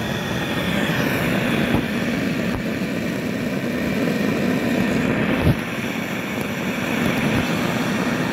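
Handheld gas torch burning with a steady roar, its flame directed into the aluminium cylinder head around a valve guide to heat it for changing the guide. A single sharp knock about five and a half seconds in.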